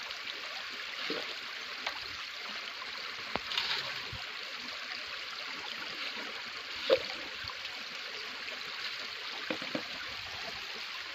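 Water trickling and splashing steadily as a bamboo lift net is hauled up in shallow flood water and water is thrown out of it with a plastic bucket, with a few sharp splashes or knocks, the loudest about seven seconds in.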